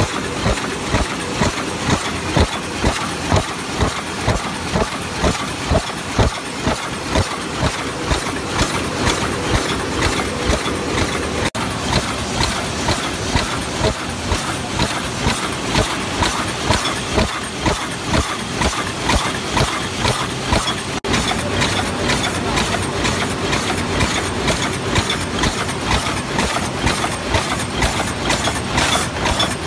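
High-speed paper cup making machine running, its forming turret and stations working with a regular mechanical clacking of about two strokes a second over steady machine noise.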